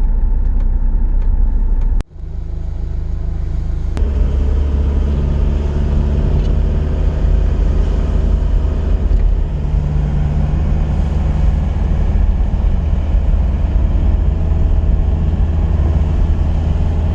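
A 2005 Kia Bongo III camper van driving: a steady low engine and road rumble. The sound drops out briefly about two seconds in and picks up again, fuller, about four seconds in.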